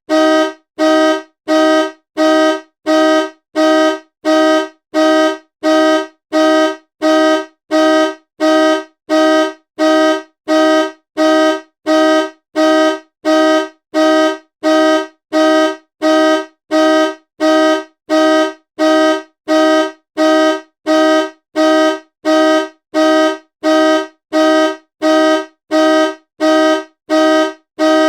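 Car horn honking in short, evenly spaced blasts, about three every two seconds, each blast a two-note chord.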